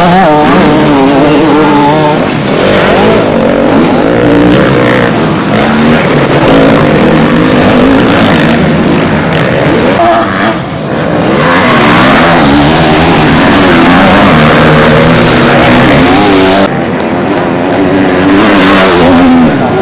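Motocross bike engines revving hard at race pace, the pitch climbing and dropping again and again as the throttle is worked through jumps and corners. The sound changes abruptly about halfway and again near the end.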